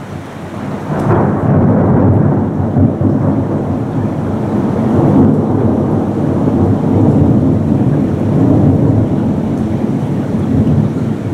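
Long rolling thunder that swells about a second in, rumbles on for several seconds and eases off near the end, with rain falling.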